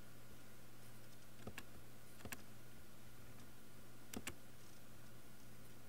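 Computer mouse button clicking: three pairs of short, sharp clicks, spaced out over a few seconds, over a faint steady low hum.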